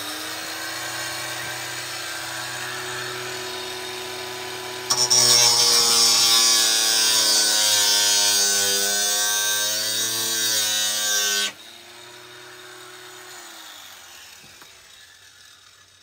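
Greencut cordless angle grinder running free with a steady whine, then cutting through protruding metal screws and nails for about six seconds with a loud, hissing grind as its motor sags under the load. The disc is lifted off the metal suddenly, and the motor winds down with falling pitch.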